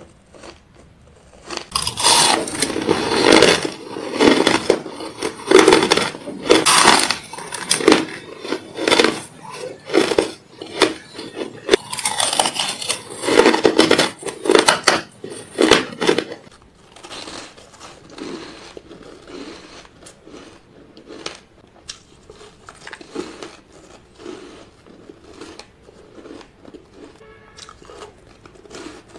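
Close-miked crunching of ice being bitten and chewed, dense and loud for much of the first half, then softer and sparser crunches from about halfway.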